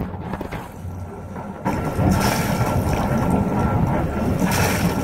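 A yacht's inboard engine running while its wet exhaust spits cooling water out over the side, splashing and gurgling at the outlet. This is the sign that the raw-water cooling is pumping through and leaving the boat as it should. The splashing gets suddenly louder a little under two seconds in.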